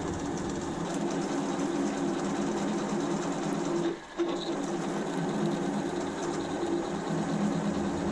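Milling machine spindle running a 20 mm twist drill through aluminium bar, a steady mechanical hum with the hiss of cutting, broken off briefly about four seconds in.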